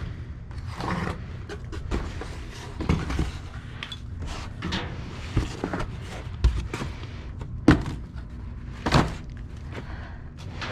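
Rummaging through discarded boxes and bags in a dumpster: rustling, scraping and repeated knocks and thuds, with two sharper thuds about eight and nine seconds in.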